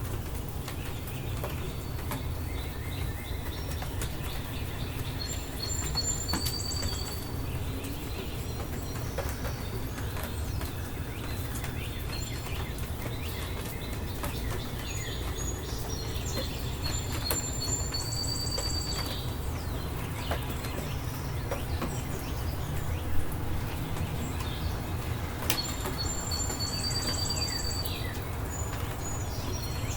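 Steady rain with scattered drips and ticks, and a songbird singing the same short phrase three times, each ending in a high trill. A couple of sharper ticks stand out about two-thirds of the way through.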